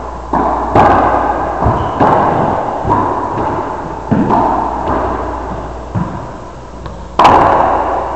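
Racquetball rally: sharp smacks of the ball off racquets and the court walls, each ringing on in the echo of the enclosed court. Several hits come about a second apart, then a pause, then the loudest smack near the end.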